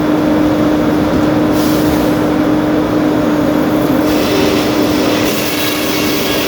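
Sawmill machinery running with a steady hum and continuous mechanical noise; the higher hiss shifts in level a couple of times.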